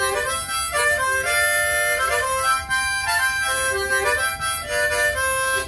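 Diatonic harmonica playing a short melody with several holes sounding together instead of single notes. This is the unisolated, 'dirty' beginner's sound that a teacher judges wrong.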